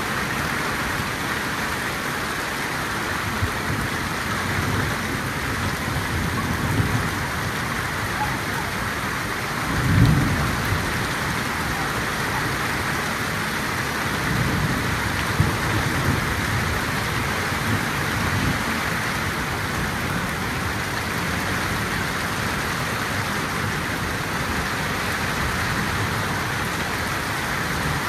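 Heavy downpour: a steady hiss of rain falling on grass and ground, with low rumbles of thunder, the loudest about ten seconds in.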